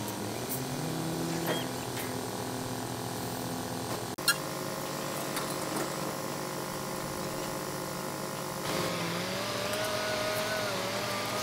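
Engines of heavy construction machinery (crawler cranes, truck and excavator) running steadily. There is a single sharp knock about four seconds in, and from about two-thirds of the way through an engine note wavers up and down.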